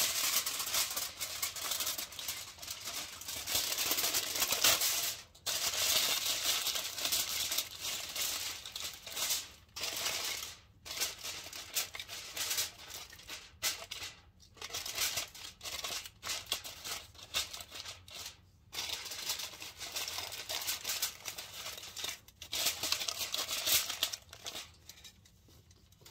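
Aluminium foil crinkling and rustling as it is folded and pressed around a packed block of cornstarch, in stretches broken by short pauses.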